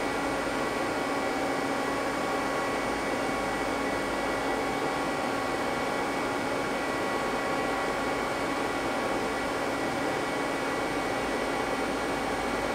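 Steady machine-shop hum from a powered-up Mazak CNC lathe standing idle: an even hiss with several steady tones, no cutting heard.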